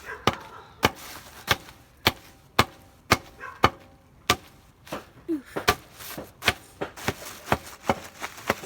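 Repeated sharp blows beating bubble wrap to pop it, about two a second, coming quicker near the end.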